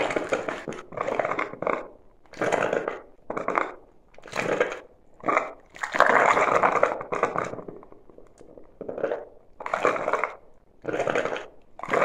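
Rocket stove water heater's coil boiling and percolating, pushing steam and hot water out of its outlet pipe into the stainless pot in uneven puffs, about one a second. The water is flashing to steam because too little flows through the coil; the builder plans to add a pump.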